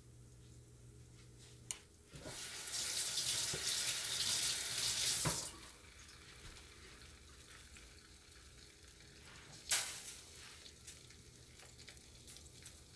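Chicken wings deep-frying in a pot of foaming oil, a low steady bubbling hiss; the foaming comes from Coca-Cola in the batter. About two seconds in, a much louder hissing rush lasts some three seconds and cuts off abruptly, and there is a single sharp click near the end.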